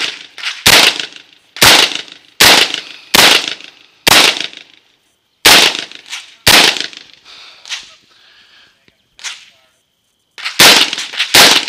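Semi-automatic AR-style rifle firing single, evenly paced shots about a second apart, each sharp and loud with a short ring-out. After a pause of about four seconds, two more quick shots come near the end.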